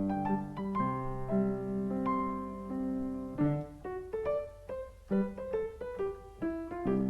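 Solo piano playing a gentle melody over sustained chords. It thins to a softer passage midway, then fuller chords return near the end.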